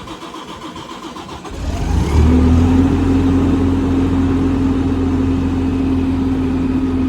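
An engine starts about a second and a half in, picks up briefly and settles into a steady, loud run with a constant hum.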